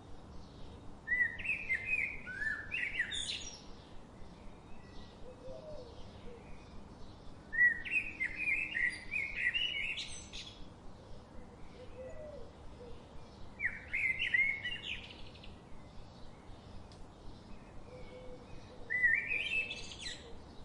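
A songbird singing a short, fast phrase of chirping notes four times, with a pause of a few seconds between phrases.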